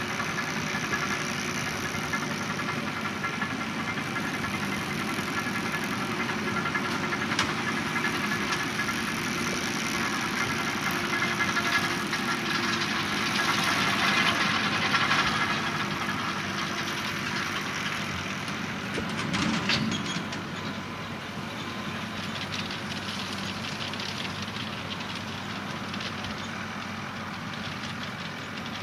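Fendt 415 Vario tractor's four-cylinder diesel running steadily under load while it drives a Krone Comprima round baler baling lucerne, loudest about halfway through when the finished bale is ejected. A short run of knocks comes about two-thirds in, and then the sound drops lower as the rig pulls away.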